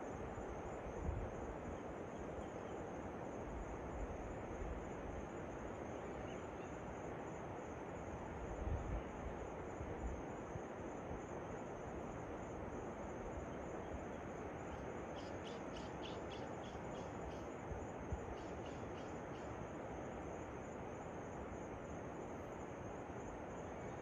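Waterfall rushing steadily, with a bird calling in two runs of rapid repeated notes, about four or five a second, about two-thirds of the way through. A steady, faintly pulsing high-pitched band sounds over the water throughout.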